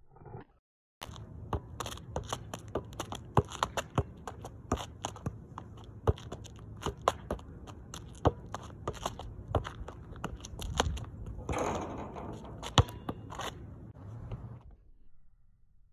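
A basketball juggled with the feet: quick, irregular taps of the ball on the shoes and on the asphalt court, over a low steady rumble. A longer scuffing noise comes about three-quarters of the way through, and the taps stop shortly before the end.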